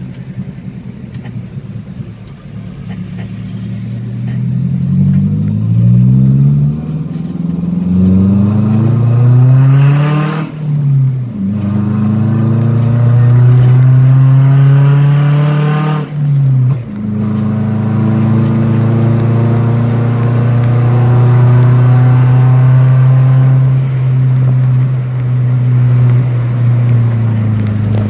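Daihatsu Gran Max engine and exhaust, with an Alpino header and muffler and the stock resonator removed, heard from inside the cabin as the van accelerates. The exhaust note rises in pitch, drops briefly at gear changes about ten and sixteen seconds in, then holds steady. It sounds loud and a bit shrill.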